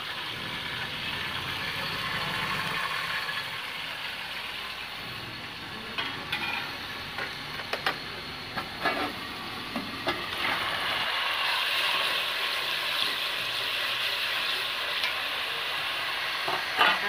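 Browned onions sizzling in oil and a splash of water in a metal pot on a gas stove: a steady frying hiss, with a few clicks and clinks of metal about halfway through. The sizzle grows louder in the second half.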